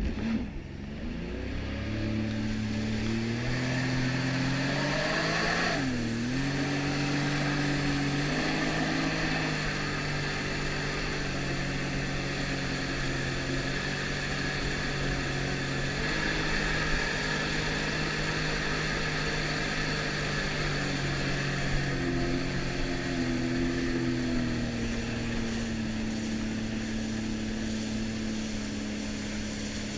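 Jet ski engine running hard across open water: it revs up in the first couple of seconds, dips and picks up again about six seconds in, then holds a steady pitch that eases down a little near the end, over a constant hiss.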